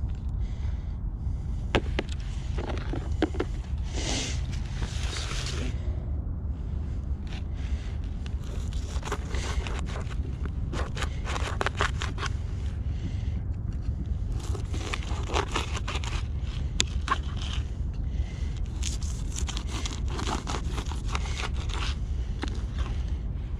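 Knife cutting a shad into bait on a plastic cutting board: repeated scraping strokes and sharp clicks of the blade on the board, over a steady low rumble.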